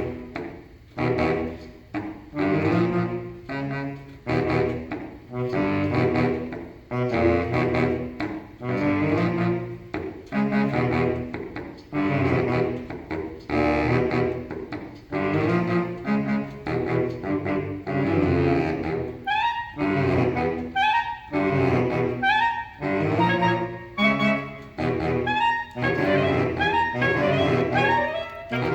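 Saxophone quartet playing short, detached chords in a driving rhythm, roughly one a second. Higher notes join in about two-thirds of the way through.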